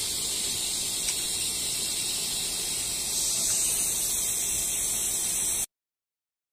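Steady hiss, a little louder from about three seconds in, cut off abruptly to dead silence near the end.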